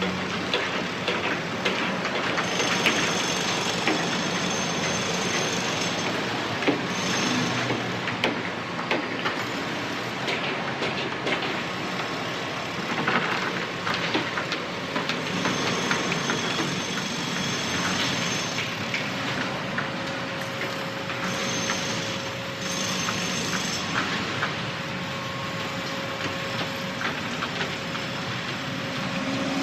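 Construction-site machinery running steadily, with dense metallic clatter and knocks throughout. Short spells of high-pitched squealing come and go several times.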